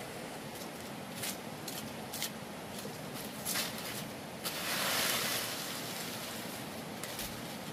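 Steady rushing background noise with scattered sharp clicks or snaps, and a louder rustling swish about five seconds in.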